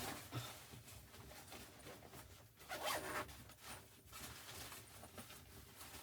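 A zipper being pulled in several short rasps, the longest about three seconds in.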